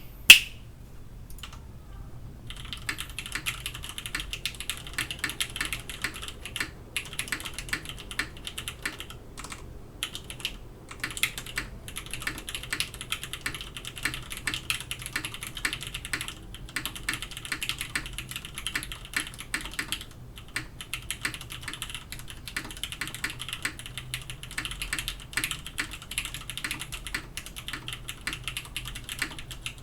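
Typing on a Krush65 mechanical keyboard, top-mounted with an aluminium plate and Cherry Orange switches: a steady run of fast keystroke clacks with a few short pauses. The typing starts after a couple of isolated key clicks, about two and a half seconds in.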